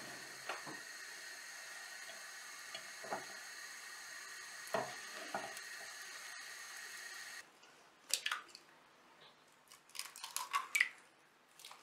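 Pancake batter sizzling in hot oil in a frying pan, with a few light clicks of a metal fork against the pan as a pancake is turned. After about seven seconds the sizzle stops, and sharp taps and clinks follow as eggs are cracked against a glass bowl holding a wire whisk.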